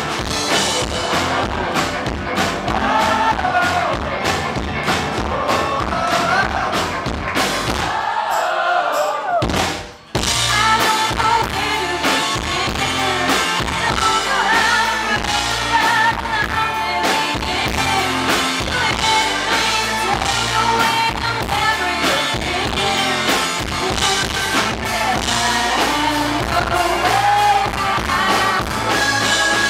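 Live rock band playing with singing: electric guitars, drum kit and keyboard under the vocals. About ten seconds in, the drums and bass drop out for a moment, and then the full band comes back in.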